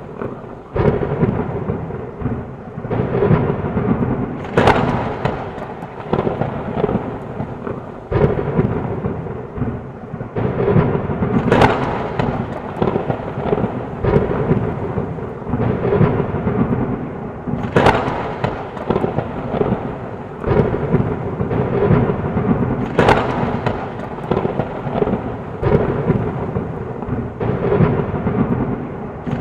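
Thunderstorm: thunder rumbling and rolling without a break, with four sharp cracks of thunder about six seconds apart, over steady rain.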